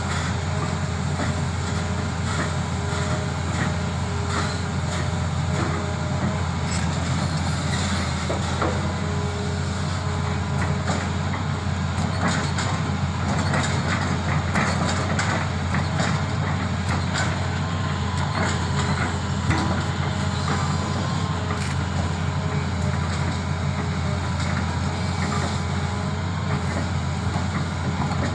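Hitachi Zaxis 200 excavator's diesel engine running with a steady low drone and a faint whine above it while its log grapple loads rubberwood logs onto a lorry. Scattered knocks of logs come mostly in the middle of the stretch.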